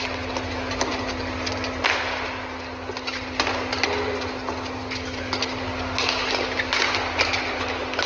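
Badminton doubles rally: a string of sharp racket strikes on the shuttlecock, several a second at times, over steady arena background noise with a low hum.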